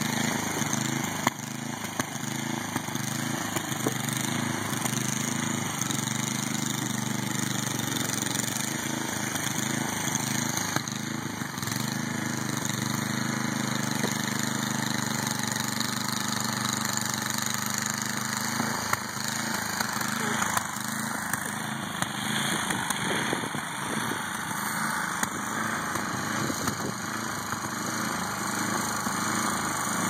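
A small engine running steadily in the background, with an even hum that weakens about two-thirds of the way through.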